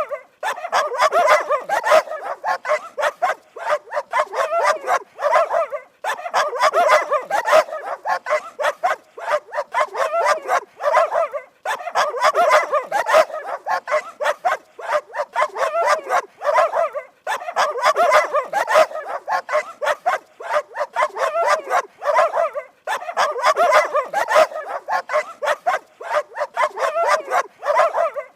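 Dogs barking rapidly and without let-up, in runs of about five seconds broken by brief pauses.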